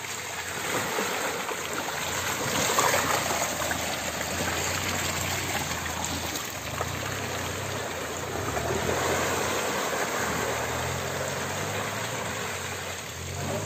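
Hyundai Venue compact SUV driving slowly through mud and puddles: the engine running low under a steady splashing and churning of the tyres through muddy water, loudest about three seconds in and again around nine seconds.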